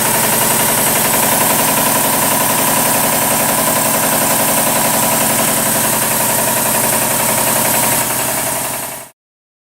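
American Kellogg 462 air compressor, 25 hp, running with a steady rhythmic rod knock from worn bearings on three of its four connecting rods. The sound fades and cuts off about nine seconds in.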